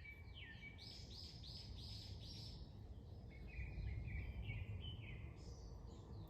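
A small songbird singing runs of short, quickly repeated down-slurred notes: a higher run of about five notes a second in, then a lower run of shorter notes later on. Beneath it runs a steady low outdoor rumble.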